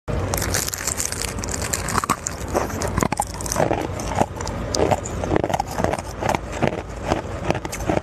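Hard ice being bitten and chewed: a person crunching chunks off a large block of ice, an irregular run of crisp, cracking crunches.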